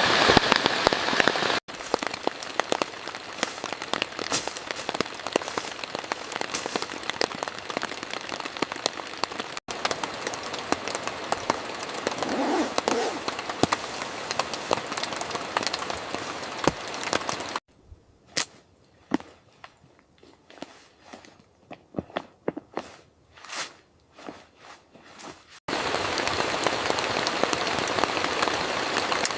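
Heavy rain falling, a dense hiss full of sharp drop taps and crackles. For several seconds past the middle it drops to sparse single drips, then steady heavy rain returns near the end.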